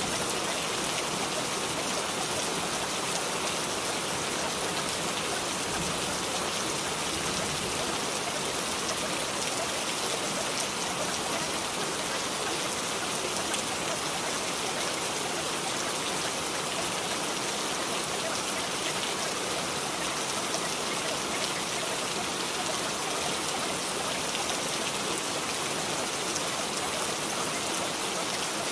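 Steady rain, an even hiss that neither breaks nor changes.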